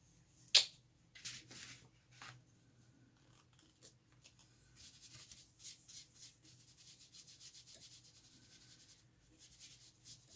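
A sharp click about half a second in, then a paintbrush scrubbing acrylic paint onto textured mixed-media paper in quick short strokes, most steadily in the second half.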